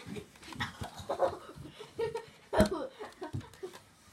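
Two boys wrestling on a carpeted floor: grunting, panting and straining voices with the knocks of bodies hitting the floor, the loudest a heavy thud about two and a half seconds in.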